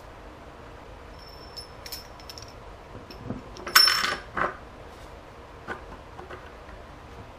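Metal objects clinking and clattering: a few light ringing ticks, then one loud ringing clatter a little past halfway with a second knock right after it, and a few fainter knocks near the end.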